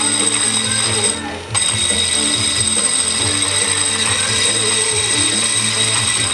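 Variable-speed angle grinder with a diamond cup wheel grinding down the edge of cured concrete: a steady, loud, high-pitched whine with a rough grinding noise under it. It goes briefly quieter about a second in, then picks up again.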